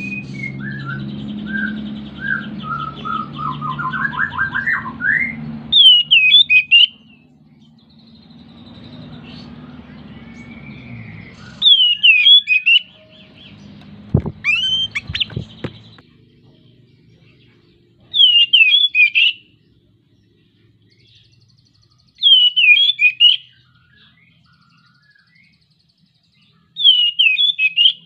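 Oriental magpie-robin singing, a male in full breeding condition: first a run of quick varied notes over a low hum, then five short loud phrases of sharp whistled notes, repeated every few seconds. A few sharp knocks about halfway through.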